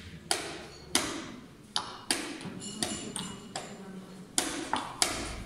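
Wooden chess pieces set down on the board and the chess clock button slapped in quick alternation during a blitz game: about ten sharp knocks and clicks, some in quick pairs.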